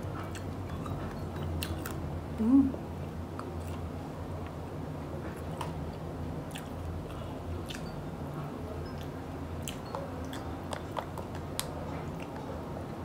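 Close-up chewing and biting of crunchy deep-fried one-day-old chick, with scattered small crunches and clicks over a steady low hum. One short, louder low sound about two and a half seconds in.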